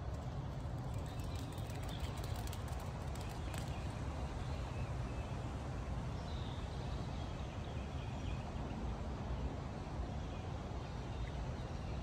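Outdoor ambience with a steady low rumble, a run of light clicks during the first few seconds, and faint high bird chirps a little past the middle.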